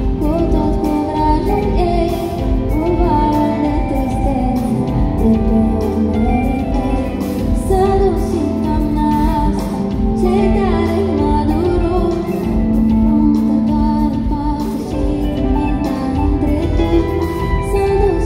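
Live pop band playing through a concert PA: a woman sings over electric guitar, keyboard and drums, with a strong low end.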